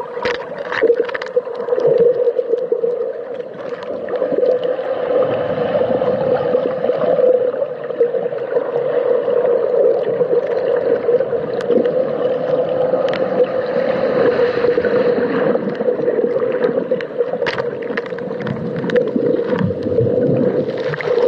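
Underwater sound of rough surf churning over a rocky shore, picked up by a camera in a waterproof housing: a muffled, steady rushing with a low droning note through it and scattered clicks and crackles.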